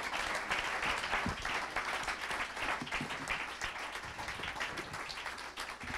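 Audience applauding with many hands clapping, the clapping thinning out and growing quieter toward the end.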